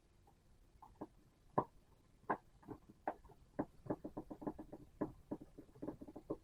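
Screwdriver driving small screws into the plastic case of an IBM PS/2 mouse: a run of irregular small clicks and ticks, sparse at first and coming quickly in the second half.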